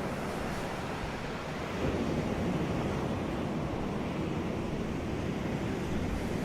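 Ocean surf washing onto a beach, a continuous low rushing wash that swells a little about two seconds in.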